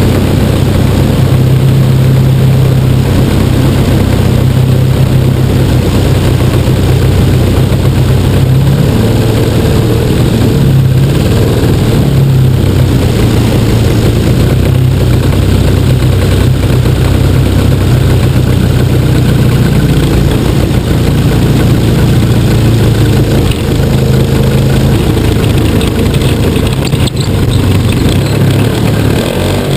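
Large-scale gas engine of a 60% RC Piper Cub, heard from a camera mounted on the cowl, running steadily through a descent and landing approach, its note shifting a little as the throttle changes, with propeller wash and wind over the microphone. A brief knock near the end as the model touches down on the grass.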